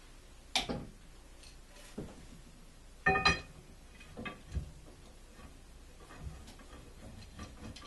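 Metal clanks and knocks as a heavy-duty steering tie rod and its tie rod ends are handled and threaded together on a wooden workbench. The loudest clank, about three seconds in, rings briefly, with lighter knocks and small clicks around it.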